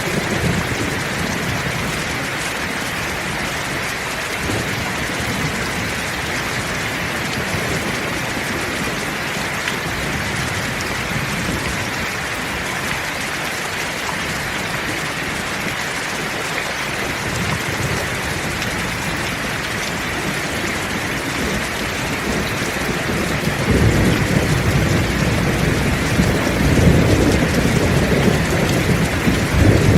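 Heavy rain falling steadily, with a low rumble of thunder building about three-quarters of the way through.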